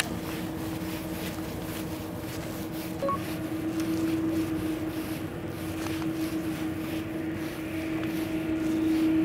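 Steady low hum of the fishing boat's engine idling, swelling a little a few seconds in and again near the end. A short beep sounds about three seconds in.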